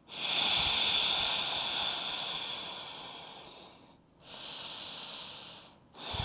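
A woman breathing deeply and slowly while holding a seated forward fold: one long breath of about four seconds fading away, a shorter breath after a brief pause, and the next starting at the end.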